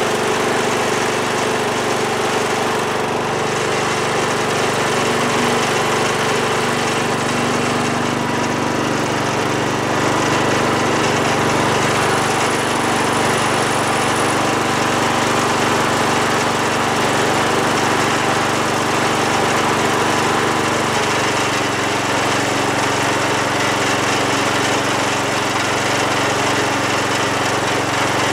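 Wheel Horse 416-8 garden tractor's Kohler Magnum 16 hp engine running steadily, just after a cold start. Its note drops slightly about three quarters of the way in.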